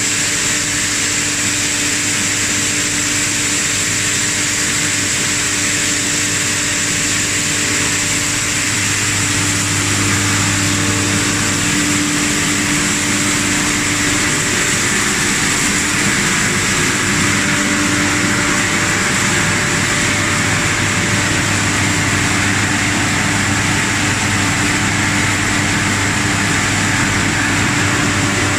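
PET bottle washing and recycling line running: a steady industrial machine din with a low electric-motor hum and a constant high whine.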